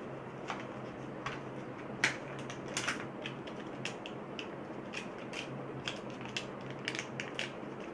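Handling noise as a coiled USB cable is lifted out of a cardboard phone box compartment: scattered light clicks and crinkles of cardboard and cable, with a louder click about two seconds in, over a faint steady low hum.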